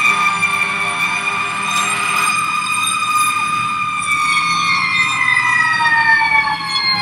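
Fire engine's siren wailing, heard from inside the cab: a high, steady tone that starts slowly falling in pitch about halfway through.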